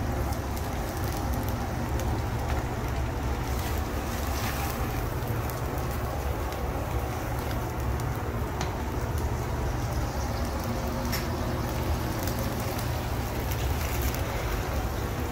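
Cachaça flambéing in a pan of octopus over a gas burner: the alcohol flames burn with a steady low rumble. A few light clicks sound now and then.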